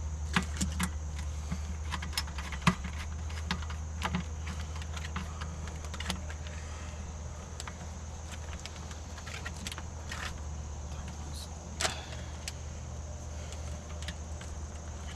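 Scattered light clicks, knocks and small metallic rattles of hand tools during electrical wiring work, over a steady low hum.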